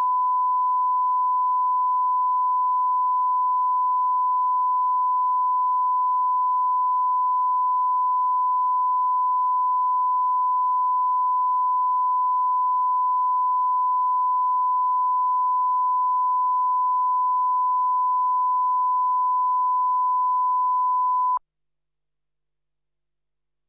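Steady 1 kHz line-up test tone, the reference tone that runs with colour bars for setting audio levels on a broadcast tape. It cuts off suddenly near the end.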